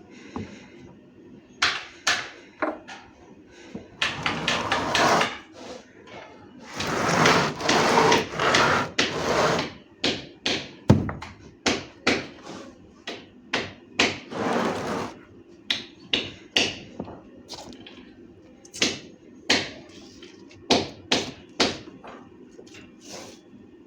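Sharp knocks and taps of wood and tools being handled at a workbench, irregular and spread throughout, with three longer scraping sounds in between. No router or other power tool is running.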